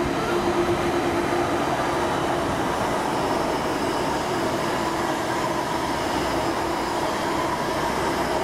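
Diesel train running past on the line, a loud, steady sound of engine hum and wheels on rail.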